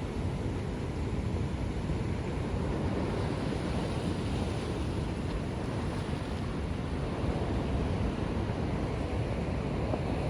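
Ocean surf breaking and washing ashore: a steady rush of waves that swells a little a few seconds in.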